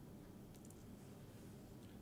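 Near silence: room tone with a faint low hum and a couple of barely audible ticks.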